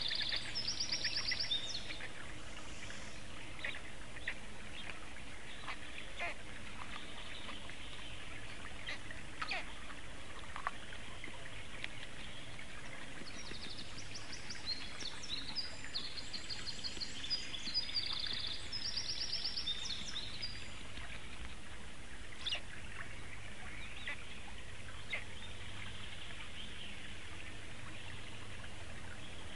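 Small songbirds singing high, fast trilled phrases, near the start and again about halfway through, over a steady background hiss, with scattered short clicks and taps.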